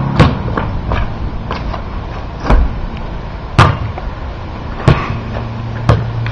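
Basketball thudding in play, about six sharp hits at irregular spacing, over steady wind noise on the microphone.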